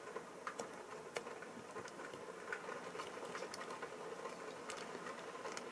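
Faint, irregular crackling and ticking from solder flux sizzling as a hot soldering-iron tip melts a large solder joint, over a faint steady hum.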